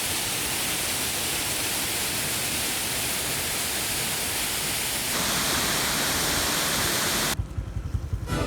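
Ban Gioc waterfall roaring: a steady, dense rush of falling water that turns brighter about five seconds in. Near the end it cuts off abruptly to a much quieter low, uneven rumble.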